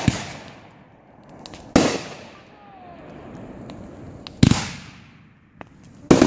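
Fireworks going off: sharp booms about every two seconds, each trailing off in an echo.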